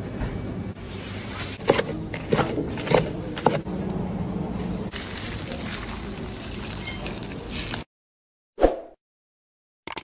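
Food-preparation noise: a steady rustling, noisy background with four or five sharp taps in the first few seconds. It cuts off suddenly, followed by a brief whoosh and a click from a subscribe-button animation.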